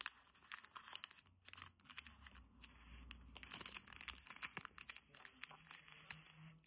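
Kraft paper crinkling and rustling as it is folded by hand into a small envelope, with many faint quick crackles.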